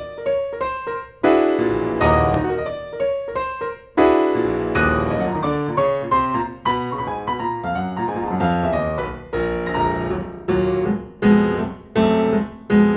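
Piano music: notes and chords struck one after another and left to fade.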